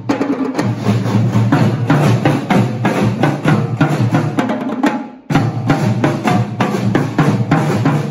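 School drumline of marching bass drums, snare drums and a struck plastic bucket playing a fast, steady samba groove. The playing dips for a moment about five seconds in and comes straight back in.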